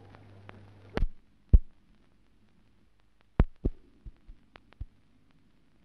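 Dull thuds of a leather football being kicked: two loud ones about one and one-and-a-half seconds in, then a run of six lighter ones at uneven intervals later on. A faint steady low hum lies underneath.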